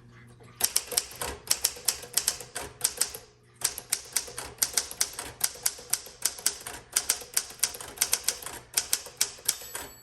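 Typebars of a 1960 Smith Corona Sterling manual typewriter striking in a quick run of keystrokes, with a short pause about three and a half seconds in. The carriage's end-of-line bell rings near the end.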